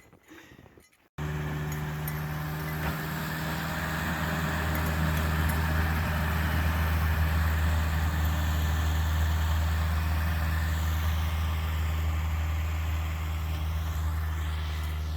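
An engine running steadily with a deep, even hum. It cuts in abruptly about a second in, after near silence.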